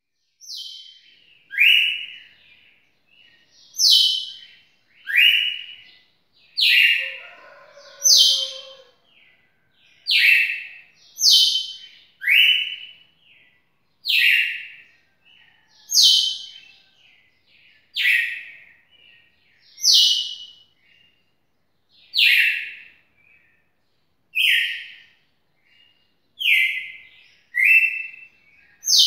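Red-cowled cardinal (galo-de-campina) singing a long run of loud whistled notes, one every second or so, alternating between a higher and a lower note. Each note slides slightly down in pitch.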